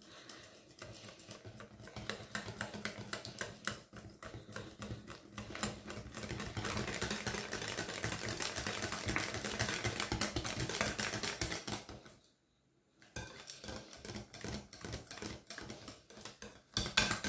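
Hand wire whisk beating pancake batter in a glass bowl: fast, continuous clicking and tapping of the wires against the glass as the egg whites are mixed in to work out lumps. The whisking stops for about a second just after twelve seconds in, then starts again.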